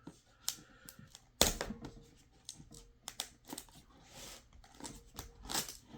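Knife packaging being opened by hand: cardboard and plastic rustling and tearing, with a run of sharp clicks and knocks, the loudest about a second and a half in.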